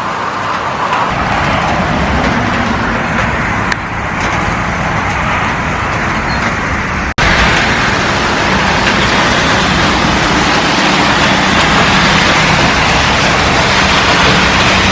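Heavy rain pouring down, a loud steady hiss. About seven seconds in it breaks off for an instant and comes back a little louder.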